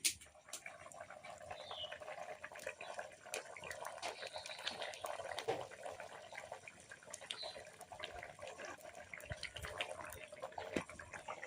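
Water sloshing and bubbling, with many small irregular clicks and crackles throughout.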